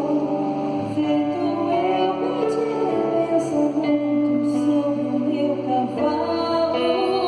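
Slow, gentle music with a singing voice, its sustained chords changing every second or two over a steady bass line.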